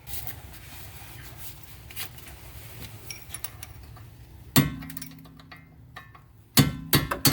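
A can of penetrating oil hissing as it sprays, then a hammer striking the strut-to-knuckle bolt to drive it out: one blow about halfway through and three quick blows near the end, each leaving the steel ringing.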